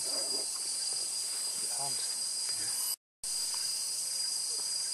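Steady high-pitched drone of tropical forest insects, with faint voices underneath. The sound cuts out completely for a moment about three seconds in.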